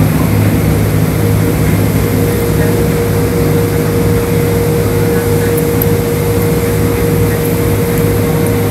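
Automatic car wash tunnel machinery running steadily: a constant low hum of motors and pumps, with a steady tone above it and an even hiss.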